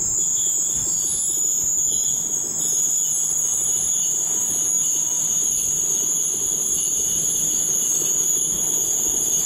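Slow-moving rail train of flatcars loaded with welded rail, rolling past with a low rumble. Over it runs a steady high-pitched squeal from the rail rollers as the rail slides over them, a sign that the rollers need maintenance.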